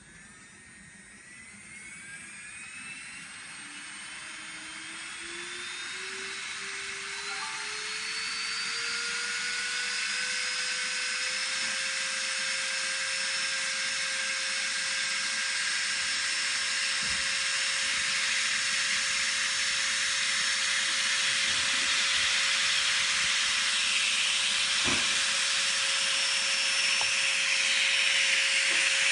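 Strong 210/102L electric nail drill's handpiece motor spinning up: a high whine that rises in pitch and grows louder over the first ten seconds or so as the speed is turned up, then holds steady at high speed.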